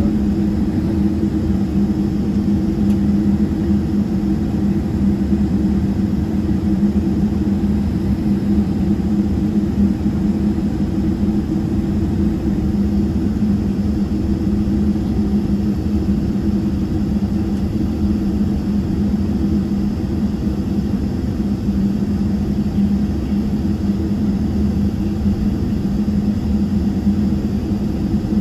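Boeing 777-300ER's GE90-115B turbofan engines at taxi power, heard inside the cabin behind the wing: a steady drone with a low rumble and a constant low hum.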